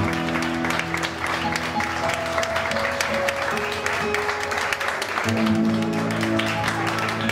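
Audience applauding over a live band's closing acoustic guitar and keyboard chords at the end of a song, with the held chord changing about five seconds in.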